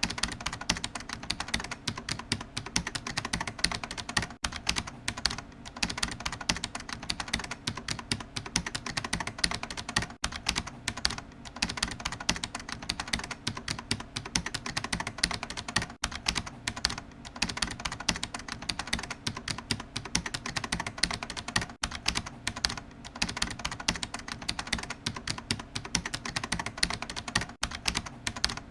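Computer keyboard being typed on rapidly and continuously, a dense stream of key clicks with only brief pauses.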